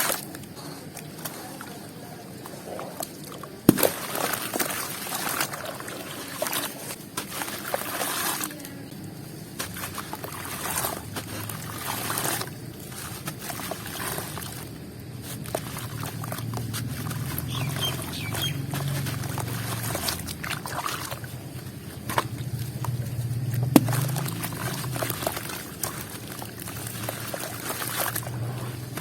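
Crunchy chalk-like balls and squares dipped in water and crumbling, with water sloshing and trickling. A few sharp cracks break through, about four seconds in and again near the end.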